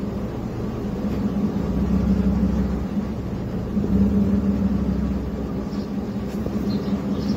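2012 Chevrolet Avalanche's 5.3-litre V8 idling with the transmission in gear, a steady low drone that swells slightly about two seconds in and again about four seconds in.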